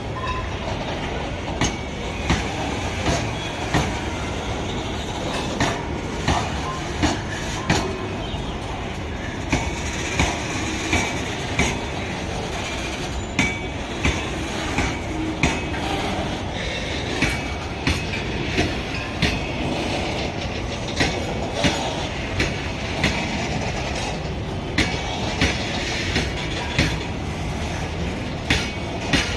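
Loaded Indian Railways freight wagons rolling past: a steady rumble with a regular clickety-clack of wheels striking the rail joints, and a few brief faint wheel squeals partway through.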